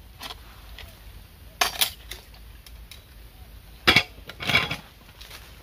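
Metal spoons and dishes clinking during a meal: a handful of scattered, separate clinks, the loudest pair near the end.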